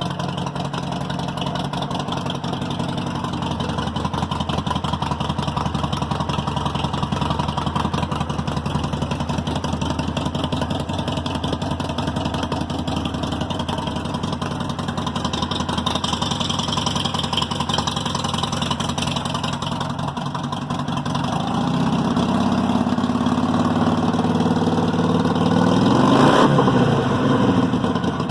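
Harley-Davidson Sportster Iron 883's air-cooled V-twin with slip-on mufflers and an open louvered air cleaner idling, on its first run after the intake change. In the last third it is blipped up in revs a few times, loudest just before the end, then drops back toward idle.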